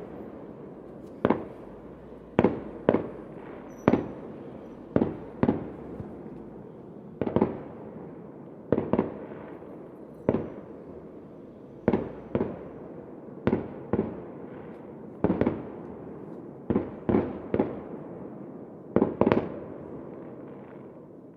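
Fireworks exploding: a string of about twenty sharp bangs, roughly one a second and sometimes in quick pairs, each trailing off over a continuous rumble that fades near the end.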